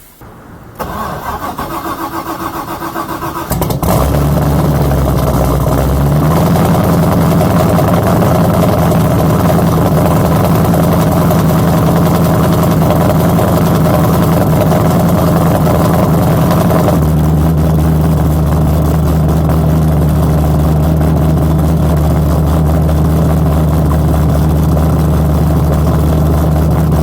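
Cold start of a 5.3 L LS V8 with a Sloppy Stage 3 camshaft in a Mazda Miata: the starter cranks for about three seconds, the engine catches and runs at a fast cold idle, then drops to a lower, lumpy cammed idle about 17 seconds in.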